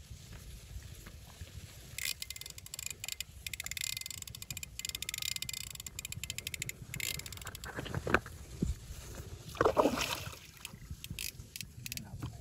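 A hooked fish thrashing and splashing at the pond surface while it is played on a rod, loudest about ten seconds in. Before that, a run of rapid ticking from the fishing reel as line is wound in, with low wind rumble on the microphone.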